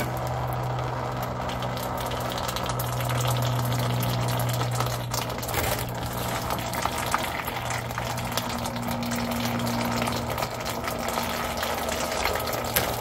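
Engine oil draining from around the loosened oil filter of a Cat C12 diesel in thin streams, splashing steadily into a drain pan.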